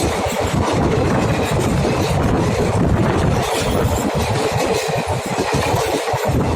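Devagiri Express passenger train running at speed, a loud steady rumble and rattle of wheels on track.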